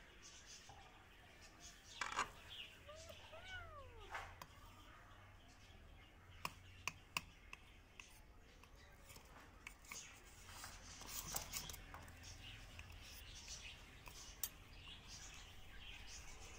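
Quiet, with a few sharp clicks and taps as a knife works a rubber balloon off a ball of ice in a steel bowl, and a light crackling stretch past the middle. Two short rising-and-falling cries come about three seconds in.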